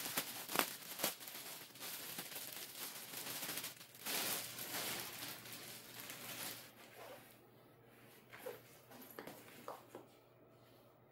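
Clear plastic packaging crinkling and rustling as a grey fabric bag is pulled out of it, with a few sharp crackles early on, loudest in the first half or so, then fading to quieter handling sounds and a few small taps.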